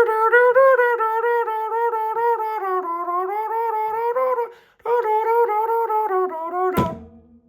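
A man humming or vocalising a melody without words, high-pitched and nasal, in two long phrases of short notes with a brief break between them. A sharp knock sounds near the end.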